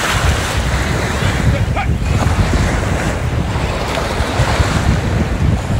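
Wind blowing across the microphone, a steady low rumble, over the constant wash of small waves in shallow surf.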